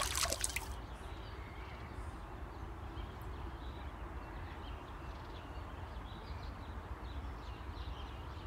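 Outdoor ambience: a steady low hum with small birds chirping faintly and repeatedly, the chirps coming in a few seconds in. A short rush of noise dies away in the first second.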